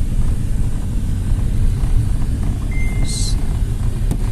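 Steady low rumble of a moving road vehicle, engine and tyre noise, with a brief high beep about three seconds in.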